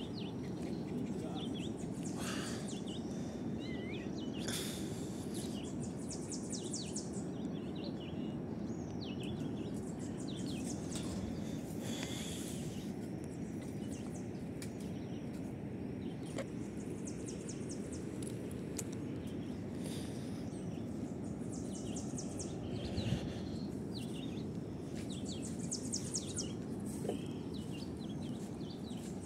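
Outdoor riverside ambience: a steady low rushing noise, with birds chirping and giving short trills on and off throughout.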